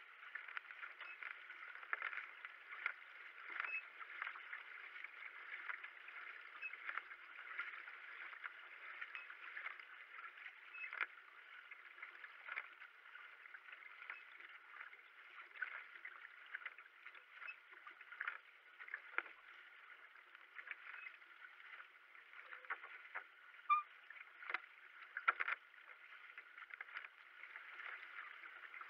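Kayak paddle strokes splashing as the blades dip and pull through the water, over a steady rush of water along the racing kayak's hull. The sound is thin, with no deep or high end. A few louder splashes come near the end.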